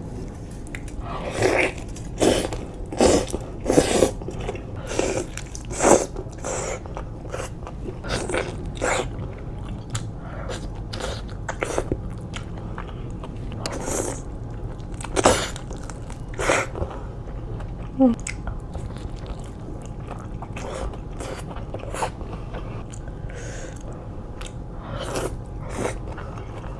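Close-miked biting and chewing of grilled chicken, in irregular short crunchy bites. They come thick in the first several seconds, then more sparsely, over a steady low hum.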